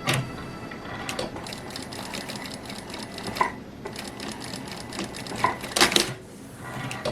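Sewing machine running in short stitching runs, with a few sharp clicks and a louder clatter about six seconds in.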